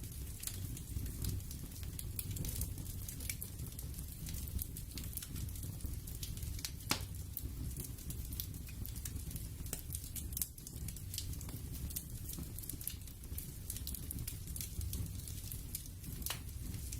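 Steady ambient crackling: irregular pops and crackles, one sharper about seven seconds in, over a low continuous rumble.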